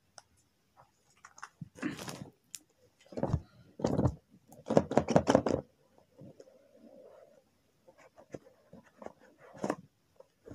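Cardboard smartphone box being opened by hand: irregular scraping and rustling of cardboard with a few knocks, loudest about four to five seconds in, as the lid is worked off.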